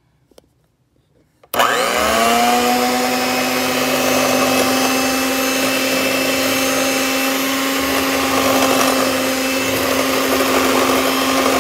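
Electric hand mixer switched on about a second and a half in, its motor rising in pitch as it comes up to speed, then running steadily with its beaters in a bowl of flour and butter, cutting the butter in for pie dough.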